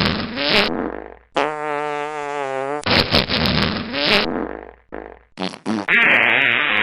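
A string of fart sound effects: a raspy, crackling one trailing off, then a long buzzy one with a wavering pitch, another raspy, crackling one, a few short blasts, and a louder, hissier one starting near the end.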